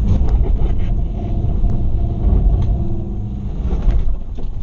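Toyota FJ Cruiser's 4.0-litre V6 working hard as it crawls up a loose rocky slope on A-TRAC traction control, with tyres scrabbling and stones clicking and knocking under the wheels.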